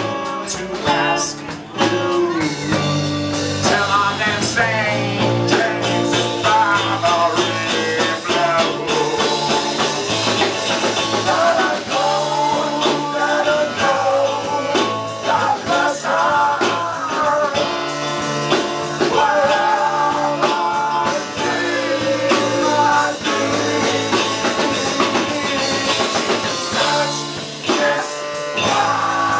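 A live rock band playing a song: a woman singing over electric guitar and drums.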